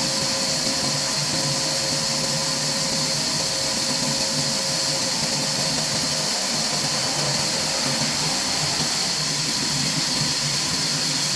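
Steady, unchanging machinery noise with a strong hiss.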